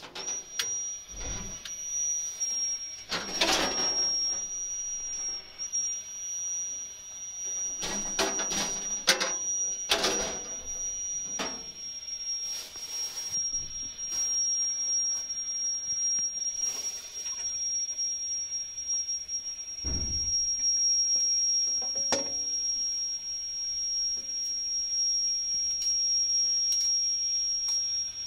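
A steady, high-pitched whistling tone that holds one pitch, beginning just after the start, with scattered knocks and rustles over it.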